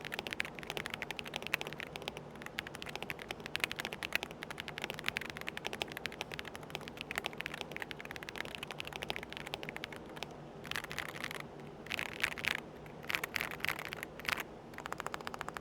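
Rapid typing on a Transformers 100% mechanical keyboard: a dense, continuous stream of key clicks, with a few short louder clusters of strokes in the second half.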